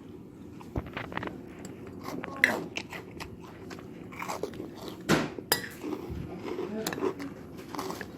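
Close-up chewing and crunching of food, with irregular sharp crackles and clicks.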